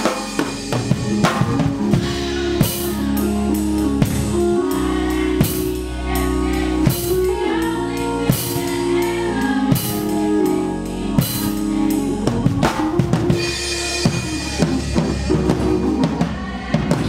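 Live band music led by a drum kit: bass drum, snare and cymbals played with sticks, a strong snare stroke about every second and a half, over held bass notes and chords.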